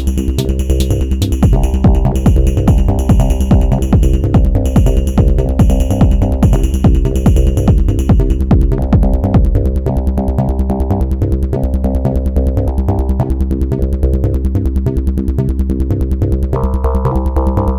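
Elektron Model:Cycles groovebox playing a hypnotic techno/psy pattern: a steady electronic beat with a heavy low end under repeating synth lines. The high, bright percussion drops out about halfway through, and a higher synth part comes in near the end.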